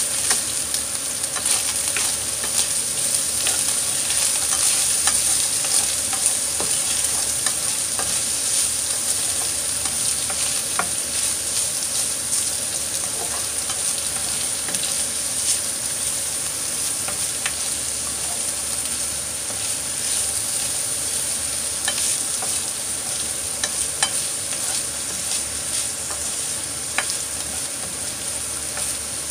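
Ground beef and chopped onion sizzling in hot oil in a frying pan while being stirred with a spatula, a steady high hiss with scattered light clicks of the spatula against the pan.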